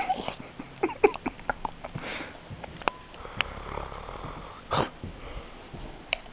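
A small dog sniffing and snorting in short, quick snuffles, with a few sharp clicks and one louder breathy snort about three-quarters of the way through.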